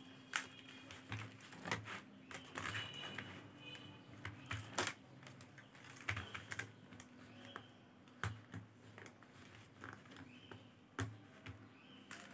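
Faceted beads clicking against one another as a beaded panel is handled and new beads are strung onto the thread: irregular small clicks and clatters of varying loudness.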